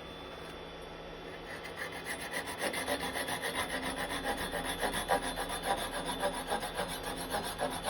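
Small hand saw cutting through yew wood in quick, short strokes, starting about a second and a half in. The saw is parting a turned birdhouse off its waste wood.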